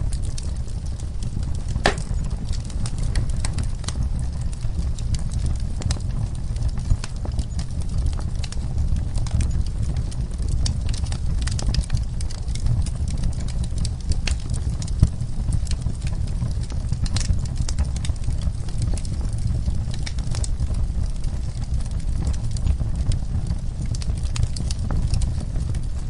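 Wood fire burning in a fireplace: a steady low rumble of flames with frequent sharp crackles and pops, a few of them louder than the rest.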